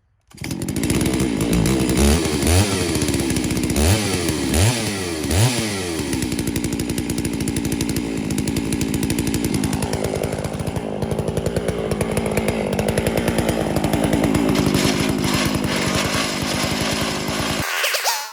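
Chainsaw on a chainsaw mill cutting sweet gum crotch wood into slabs: the saw is blipped up and down several times, then runs steadily at high speed in the cut, and stops suddenly near the end.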